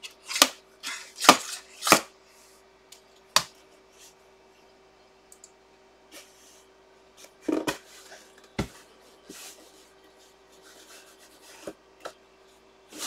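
Cardboard mystery box being handled and opened by hand: a run of sharp scrapes and rubs in the first few seconds, two more a little past the middle, and quieter rustling between, over a faint steady hum.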